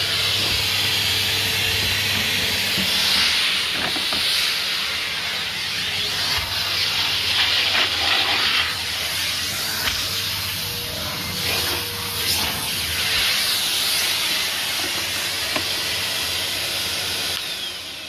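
Numatic Henry XL (NVR370-11) tub vacuum cleaner running, its suction hissing through the hose and nozzle as the nozzle is worked over carpet and skirting board. The hiss rises and falls as the nozzle moves, and the sound drops away near the end.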